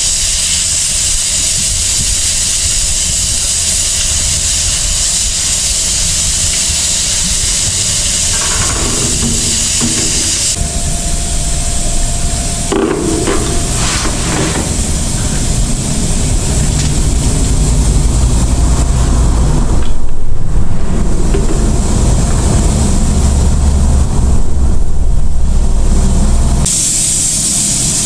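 Strong wind rushing over the microphone with a steady hiss. Heavy low rumbling gusts build up in the second half, then drop away abruptly near the end.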